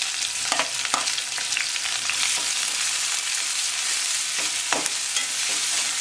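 Chopped onion, garlic and green chilli sizzling in hot oil in a metal kadai. A metal ladle stirs them, scraping and knocking against the pan a few times.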